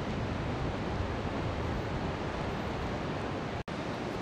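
Ocean surf breaking on a rocky shore with wind, a steady rushing noise. The sound cuts out for an instant about three and a half seconds in.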